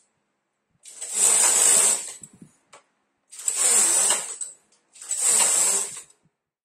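Carriage of a Silver Reed SK830 electronic fine-gauge knitting machine pushed by hand across the needle bed three times, one row per pass. Each pass lasts about a second and carries a strong high hiss.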